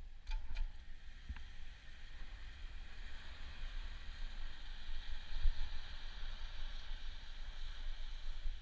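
Riding noise from a bicycle-mounted camera: wind rumbling on the microphone over a steady hiss, with a few sharp clicks in the first second and a half.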